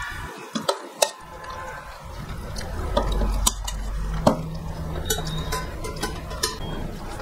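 Eating with the hands from stainless steel plates: fingers mixing rice and fish curry, with scattered sharp clinks of the plates and chewing.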